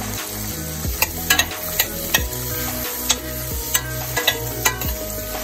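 Sliced onions sizzling in butter and oil in a stainless steel pan. From about a second in, a metal spoon stirs them, with a run of sharp clicks and scrapes against the pan.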